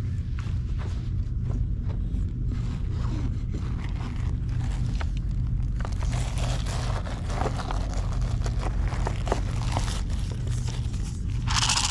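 Rustling and scraping of a fabric bag being rummaged and a plastic cup of dry cat food being handled, with scattered small clicks. The handling gets busier about halfway through, with a short sharp rustle near the end, over a steady low rumble.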